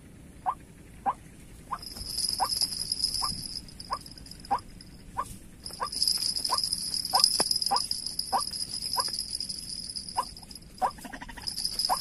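Repeated short calls of a white-breasted waterhen, one note every half-second to second in a steady series. About two seconds in, a high steady insect buzz joins them; it drops out briefly near the middle, then comes back.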